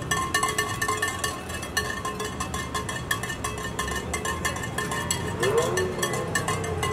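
Slow parade of cars and pickup trucks rolling past, their engines a low steady rumble under a constant irregular clatter of clicks and rattles. A sliding pitched sound rises and bends about five and a half seconds in.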